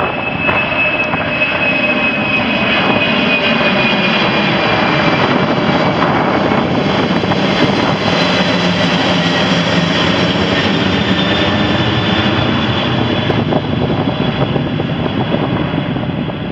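Boeing 747 cargo jet's four turbofan engines at takeoff power as it climbs out overhead. A loud, dense roar carries a high whine that glides slowly down in pitch, and the roar eases off a little near the end as the jet moves away.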